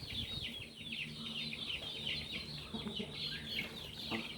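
Chicks peeping in a fast run of short, high, falling calls, several a second, tapering off near the end.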